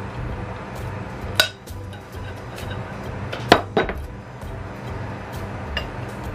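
A metal serving fork clinking against dishes as salad is served, a few sharp clinks, loudest a quick pair about three and a half seconds in, over quiet background music.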